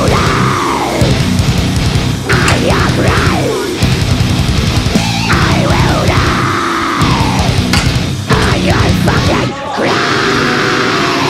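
Loud heavy metal music with a steady bass line and arching, gliding pitch sweeps in the upper part.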